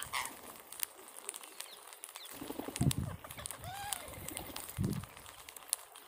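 Rose-ringed parakeets feeding on grain: many quick clicks of beaks pecking, a couple of soft bursts of wing flapping, and a short call from one bird near the middle.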